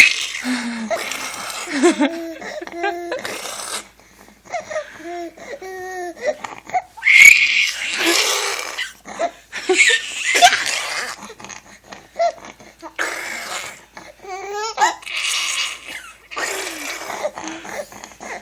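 A baby and a man taking turns at loud voice sounds: short babbled and squealed calls, with several loud breathy bursts of laughter or shouting in between.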